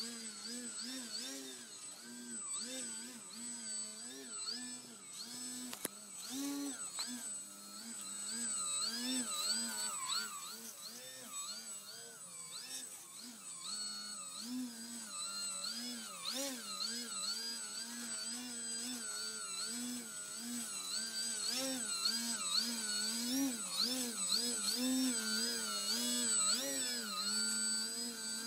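Electric motor and propeller of a Telink SU-29 foam aerobatic RC plane in flight, its whine wavering up and down constantly as the throttle is worked, with a thin steady high tone above it.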